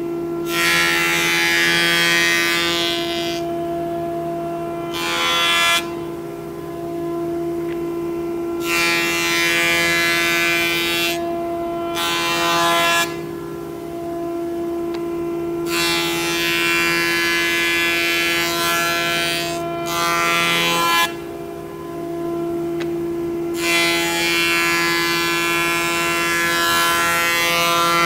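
Minimax FS41 Elite S jointer/planer running in jointer mode with a steady whine, broken by the louder hiss of the cutterhead shaving wood each time a board is pushed across it. This happens about six times, each pass lasting one to five seconds, as bowed and twisted boards are face-jointed flat.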